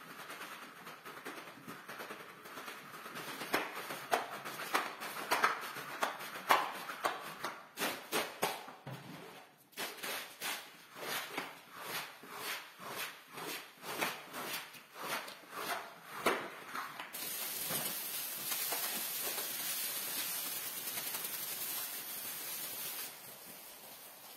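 Rubber floor squeegee being pushed across a soaked rug, a run of wet scraping strokes at roughly two a second. About two-thirds of the way through the strokes stop and water poured from a watering can onto the rug gives a steady hiss for several seconds.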